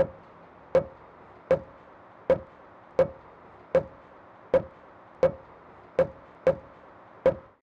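Eleven sharp knocks struck on a wall, about one every three-quarters of a second, each with a brief ringing note. This is a knock test of how solid the wall sounds.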